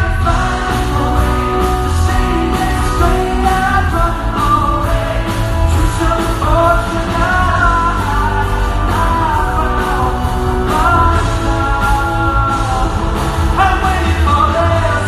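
Live rock band performance, a male lead vocal singing the melody over the band's steady bass and accompaniment.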